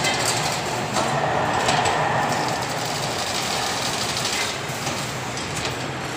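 Fully automatic single-wire chain link fence machine running and weaving wire mesh: a steady mechanical clatter, with a few sharp metallic clanks.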